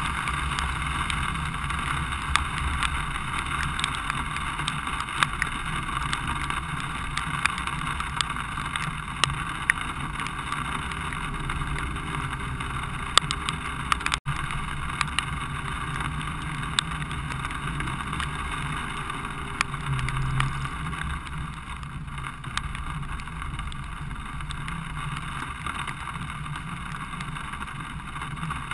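Steady low rumble and hiss of a vehicle moving slowly along rain-soaked streets, with frequent sharp ticks of raindrops striking the camera. The sound cuts out for an instant about halfway through.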